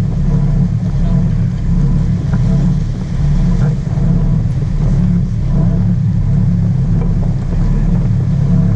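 Sportfishing boat's inboard engines running steadily under way, a deep even drone with a haze of water and wind noise over it.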